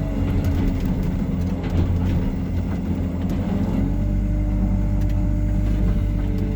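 Diesel engine of a Hyundai R140W-7 wheeled excavator running steadily while the machine works, with scattered light clicks and knocks.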